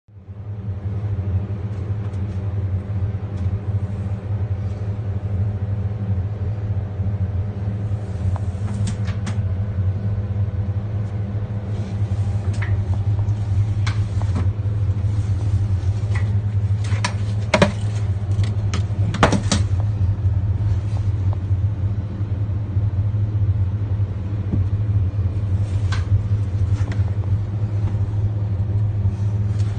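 Mercedes Sprinter van engine running steadily with a low, even drone. Sharp clicks and knocks are scattered through it, most of them in the middle stretch and a few more near the end.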